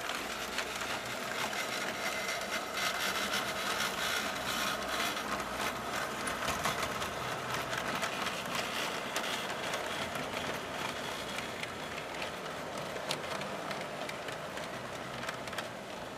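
O scale model train running along the track: a steady mechanical whir with many small clicks and rattles from the wheels and cars.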